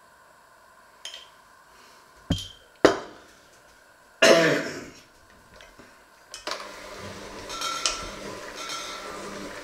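Two sharp knocks about half a second apart and a brief noisy burst, then an electric hand mixer starts about six seconds in and runs steadily in a steel bowl.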